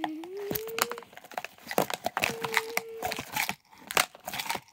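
Plastic crinkling and clicking as a toy garbage truck's hopper is loaded by hand, with a steady mid-pitched tone three times, each about a second long.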